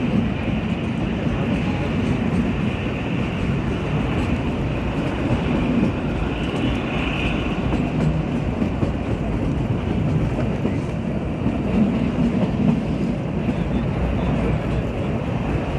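Shivalik toy train running on the Kalka–Shimla narrow-gauge line, a steady, even running noise of the moving train.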